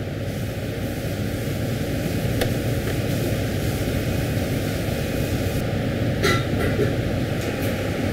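Steady whirring of a kitchen ventilation fan, with a couple of light taps, about two and a half and six seconds in.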